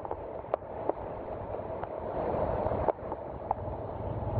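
Heavy rain pouring onto a flooded street, a steady hiss broken by a few sharp ticks. Toward the end it grows louder as a car's tyres swish through the standing water.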